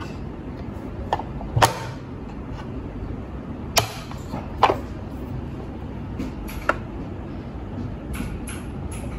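Sharp plastic clicks and knocks from a Monda 3-in-1 waffle maker being handled, its lid worked by the rose-gold handle and lifted open. About five clicks come a second or two apart.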